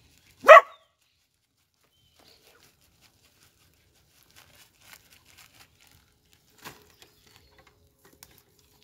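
An animal's short, loud call, once, about half a second in, followed by faint scattered clicks and rustles.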